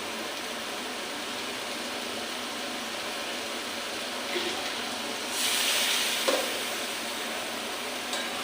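Pumpkin, greens and dried fish frying in a pan with a steady sizzle, briefly louder a little past the middle, with a light knock soon after.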